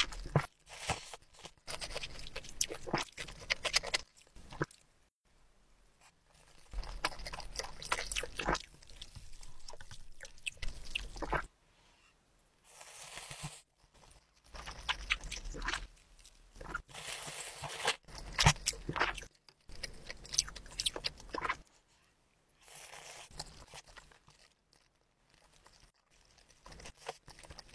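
Close-miked eating of spicy instant ramyeon: noodles slurped and chewed with wet smacks and clicks, in bursts with short quiet pauses between. Near the end, spicy broth is sipped from a large spoon.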